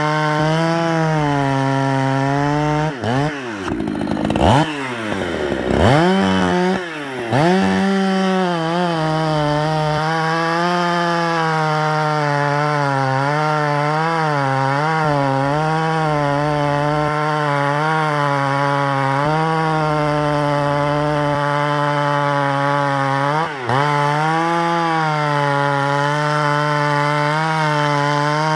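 Vintage Husqvarna two-stroke chainsaw running at high revs, bucking firewood. Its engine speed drops sharply and picks back up several times in the first eight seconds and once briefly near the end. In between it holds high with small wavers in pitch as it cuts.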